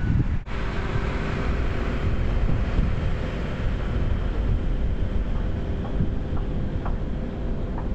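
Outdoor wind rumbling on the microphone, a loud, uneven low noise with a faint steady hum behind it. It breaks off briefly about half a second in, where one clip is cut to the next.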